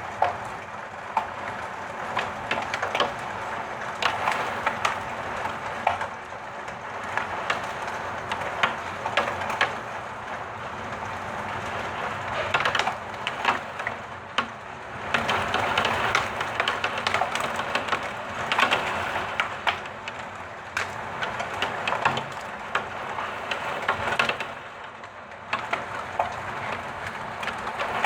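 Heavy downpour with hail: a dense rushing patter of rain, with many sharp clicks of hailstones striking hard surfaces. It eases briefly a few seconds before the end.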